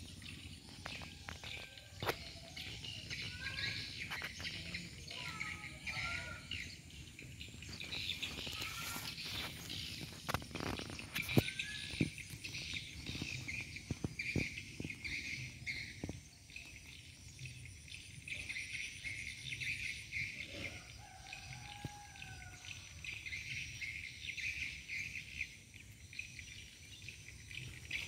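Birds calling with short whistled notes over a dense, steady insect chorus. A few sharp clicks come near the middle.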